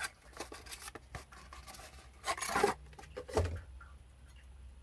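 Packaging being handled and opened: rustling, scraping and small clicks of cardboard and plastic. There is a louder scrape about halfway through and a short scrape with a soft thump just after it.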